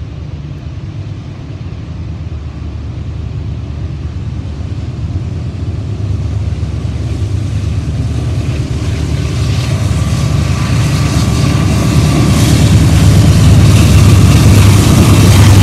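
Norfolk Southern coal train's lead diesel locomotives approaching along the track. Their low engine drone and the rail noise grow steadily louder as they come close and draw alongside.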